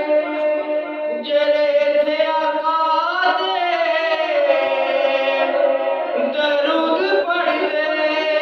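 A man singing a naat into a microphone, in long, drawn-out notes that slide up and down in pitch.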